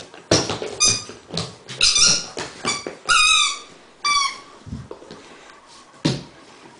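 Red spiky rubber squeaky ball squeaking again and again as a Great Dane chews it, a quick string of squeaks over the first four seconds or so, one of them longer and falling in pitch. A short knock about six seconds in.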